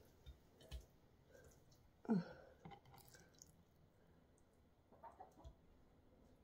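Faint handling of raw chicken strips being dropped into a slow-cooker crock: soft wet slaps and light knocks, with one brief louder sound about two seconds in.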